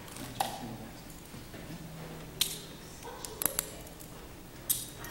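A few sharp, separate clicks in a quiet room: one soon after the start, one at about two and a half seconds, a quick cluster of three at about three and a half seconds, and one more near the end.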